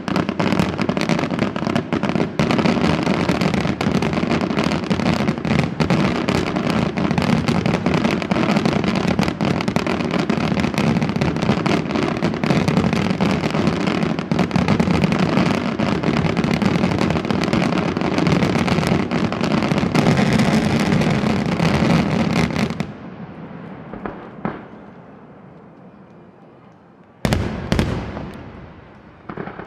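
Aerial fireworks display: a dense, continuous barrage of shell bursts and crackle that stops suddenly about three-quarters of the way through. A fading crackle follows, then two more single bursts near the end, the first of them loud.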